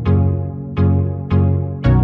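Background music: electronic synthesizer chords struck on a steady beat about twice a second, each one fading before the next.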